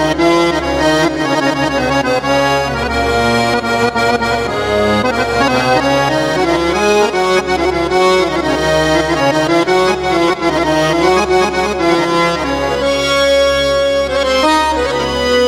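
Sampled Tarab accordion voice on a Yamaha PSR-A5000 arranger keyboard playing a continuous melody over a low bass part.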